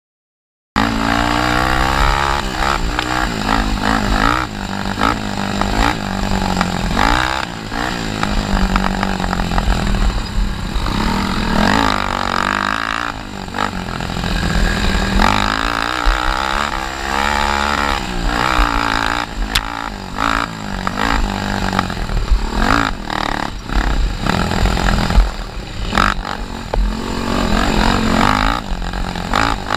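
Honda 300EX quad's single-cylinder four-stroke engine revving up and down under hard riding, cutting in about a second in after silence. A few sharp knocks stand out over the engine.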